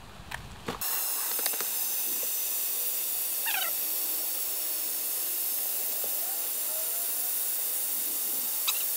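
A few faint rustles and clicks, then from about a second in a steady, even hiss of compressed air flowing through a hose into a blue fitness ball as it is over-inflated and swells.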